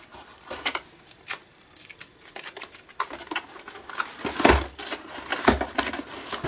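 Cardboard mailer box being pulled open by hand: scratchy rustling, crackling and tearing of the cardboard and its packing tape, with two dull thumps about a second apart in the later half.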